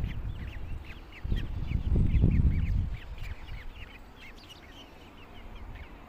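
Nestlings chirping rapidly: many short, high, falling chirps overlapping one another throughout. A low rumble from about one to three seconds in is the loudest sound.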